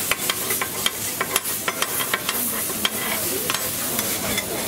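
Burgers frying on a hot griddle: a steady sizzle, with a metal spatula clicking and scraping against the plate in frequent, irregular strokes.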